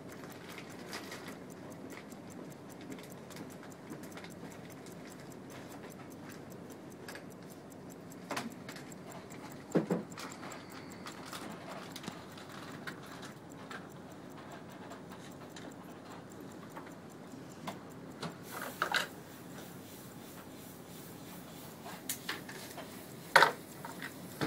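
Waltham 18-size 15-jewel pocket watch movement ticking steadily, with a few louder knocks as the movement is handled on the bench, the biggest about ten seconds in and near the end. The balance runs on low amplitude, which the owner takes as a sign that the movement needs a cleaning.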